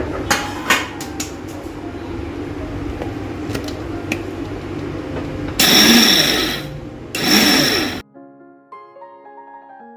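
Electric kitchen mixer grinder running steadily while grinding nuts, seeds and edible gum into powder, surging loud twice near the middle. It cuts off about 8 s in to background music with single piano-like notes.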